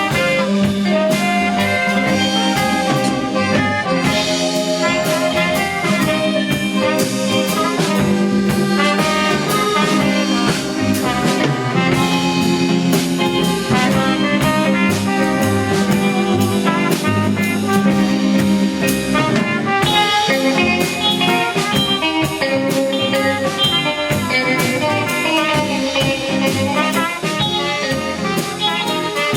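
Band playing an instrumental passage with horns over a steady drum beat.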